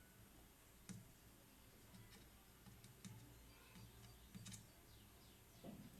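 Near silence: faint room tone with a few scattered, faint clicks.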